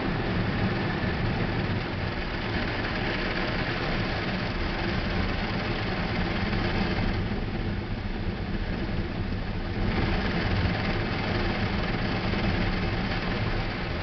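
Automatic car wash heard from inside the car: rotating brushes sweeping and water spraying against the body and rear window, over a steady low hum. The hiss eases for a few seconds midway, then comes back.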